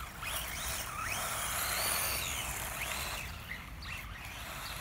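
A ZD Racing RAPTORS BX-16 RC buggy's 3300KV brushless motor whining, its pitch sweeping up and falling back again and again as the throttle is worked, over a steady hiss of the tyres on fine gravel.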